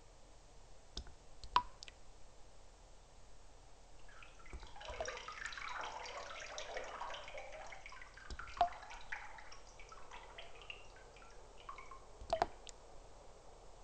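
Water drops falling into still water: a few separate, sharply pitched plinks, and in the middle a flurry of many quick small drips and splashes lasting several seconds.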